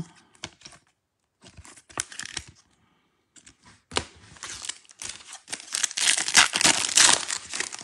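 Foil wrapper of a Panini Select football card pack crinkling and tearing open, starting about four seconds in and loudest near the end. Before that, light taps of cards being handled and set down.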